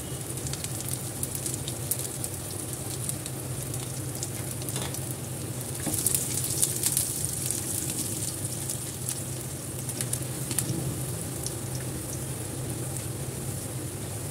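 Chopped garlic and whole spices sizzling and crackling in hot oil in a kadhai, stirred with a spatula. The crackle grows a little louder about halfway through.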